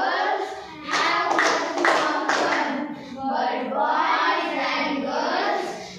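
A group of young girls singing a children's English action poem together in unison, line by line, with two short breaks between lines.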